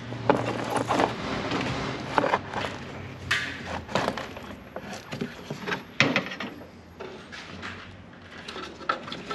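Hands working on car parts: scattered clicks, knocks and rustles as a wire is pulled through a rubber grommet and a plastic headlight housing is set into place, the sounds growing fewer and softer near the end.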